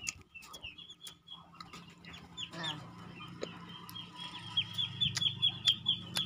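Backyard birds chirping: a quick run of short, high, falling chirps, several a second, growing louder in the second half, over a low steady hum.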